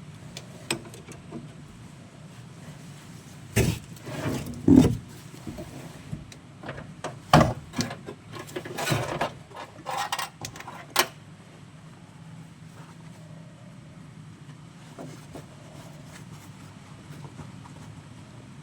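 Tools and gear being handled and set out: scattered knocks, clatters and rustles for about ten seconds, then only a steady low background hum.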